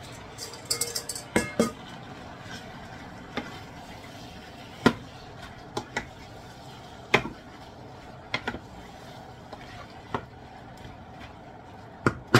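Raw chicken pieces tipped from a glass bowl into a pot of tomato sauce and stirred in with a wooden spoon: sharp knocks and scrapes of the spoon against the pot every second or two, with a cluster of clinks from the bowl near the start.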